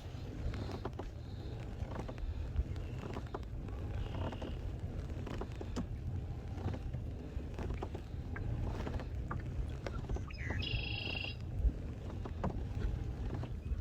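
Wind rumbling on the microphone aboard a fishing kayak, with light knocks and water sounds against the hull. A brief high-pitched chirping sound comes about ten and a half seconds in.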